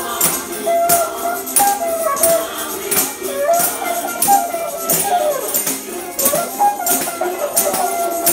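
Handheld tambourines struck and shaken in a steady beat, their jingles ringing, over dance music with a wavering melody.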